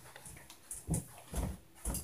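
Heavy footsteps stomping on the floor above, heard through the ceiling as low thuds. Three of them come about half a second apart, at walking pace, each with a faint click on top.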